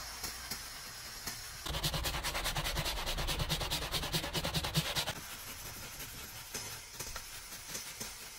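Bristle detailing brush scrubbing foamed cleaner on a car's plastic dashboard. A louder stretch of fast, even back-and-forth strokes, about eight a second, starts a couple of seconds in and stops about a second after the halfway point. Before and after it the scrubbing is softer and more irregular.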